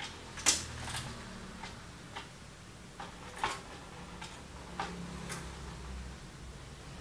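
Irregular sharp clicks and taps of a screwdriver, screws and hands working in a steel desktop PC case while the motherboard is freed, about eight in all, the loudest about half a second in.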